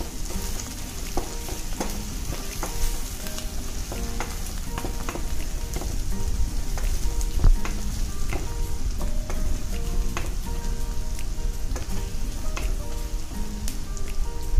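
Chopped onions, green chillies and ginger-garlic paste sizzling in hot oil in a stainless steel pan, stirred with a spatula that scrapes and clicks against the metal many times.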